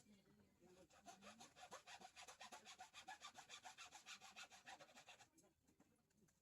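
Faint, rhythmic scraping of a small hand tool working on the laptop's bottom casing, about six quick strokes a second, stopping about five seconds in.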